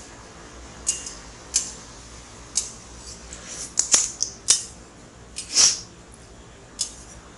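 Eating spicy instant ramen: short, sharp smacking and clicking sounds about once a second, with a quick cluster of them a little past halfway and one longer slurp soon after.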